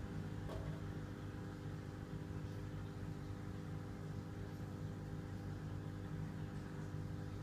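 Steady low hum of large-aquarium equipment, the pump and filter motors, made of several fixed tones with a faint hiss over them.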